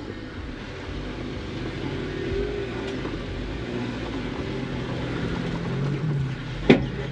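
Off-road vehicle engine working under load as it climbs steep slickrock, its pitch rising and falling with the throttle. A single sharp bang near the end.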